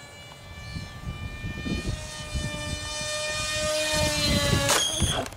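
The electric motor and propeller of a foamboard RC plane whine as it flies overhead, growing louder and sliding slightly down in pitch, with wind rumbling on the microphone. A brief sharp noise comes near the end.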